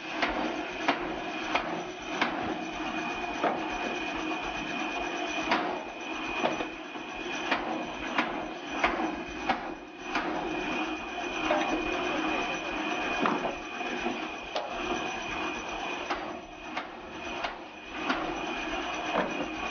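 Vertical band saw running and cutting through log rounds. It makes a steady machine noise with a constant high tone, broken by frequent irregular knocks of the wood against the saw table.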